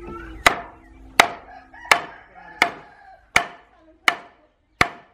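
Wooden stick striking the wooden frame of a charpai, a rope-strung bed, in a steady run of about seven sharp knocks, one every 0.7 seconds or so, each with a short ring.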